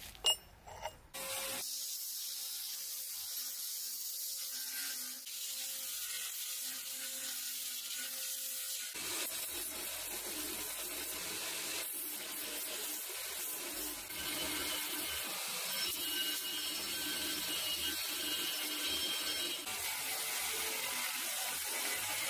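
A couple of brief knocks, then a belt grinder running with a steady hiss. About nine seconds in, leaf-spring steel is pressed against the belt and the sound turns into a fuller, rougher grinding that holds steady.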